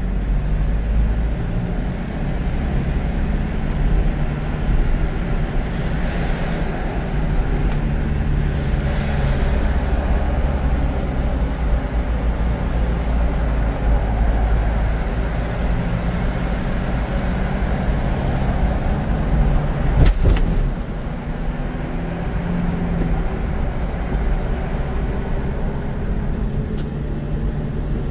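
Car driving in traffic: a steady low rumble of engine and tyre noise with a faint hum. A single sharp knock is heard about two-thirds of the way through.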